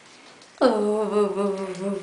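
A woman humming affectionately to a puppy: one long wordless note that begins a little over half a second in, dips in pitch at the start, then holds and sinks slowly.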